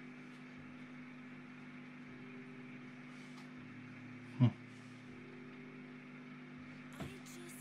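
A steady low hum, with one sharp tap about four and a half seconds in and a fainter one near the end.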